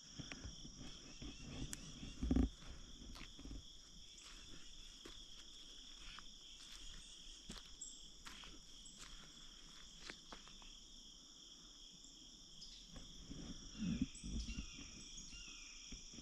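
Steady buzzing of insects in two high pitches, with faint scattered bird chirps. A couple of low bumps, one about two seconds in and another near the end.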